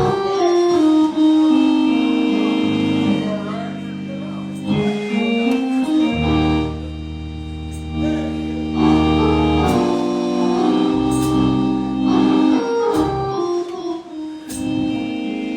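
Organ playing held chords that change every second or two, with low bass notes coming in partway through.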